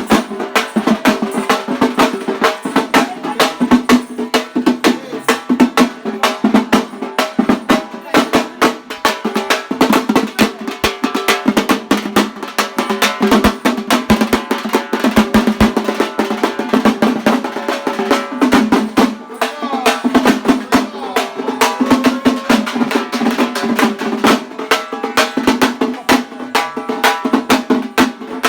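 Fast karagam folk dance music: dense, rapid drum strokes played continuously, with a sustained pitched melody line held over them.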